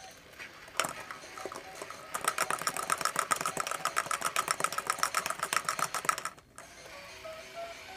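Battery-powered ball-drop toy at work: a sharp clack about a second in, then a fast, even clicking rattle for about four seconds that stops suddenly as the ball is carried through the toy. A short electronic tune plays near the end.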